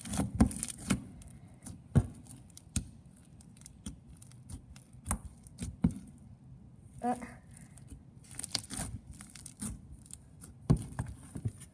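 Crunchy slime being squeezed and worked in the hands, giving off irregular crackling and popping clicks with short pauses between handfuls.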